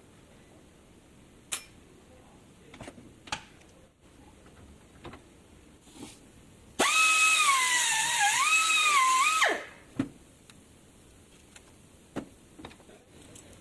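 A small electric power tool runs for about two and a half seconds with a high whine, dipping in pitch as it takes load, then stops. Scattered light clicks and knocks of handling come before and after it.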